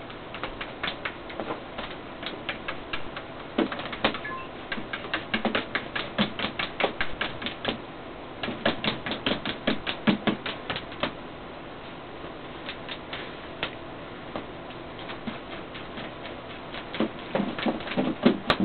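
A cat working at a plate of cookies, making rapid sharp clicks and taps, about four or five a second, in bursts with a quieter stretch between them.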